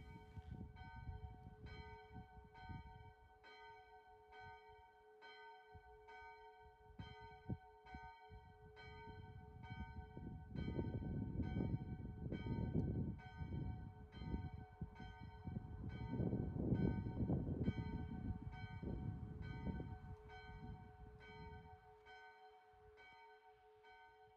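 Church bell ringing, struck in a fast regular rhythm of about two strokes a second, over a low rumbling noise that swells and falls in the middle; the bell fades near the end.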